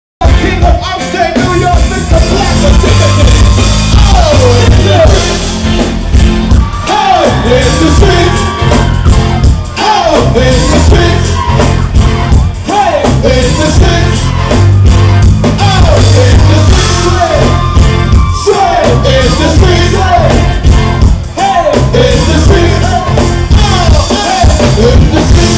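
Live band playing a dancehall song with sung vocals over heavy bass. It cuts in suddenly at the start and stays loud.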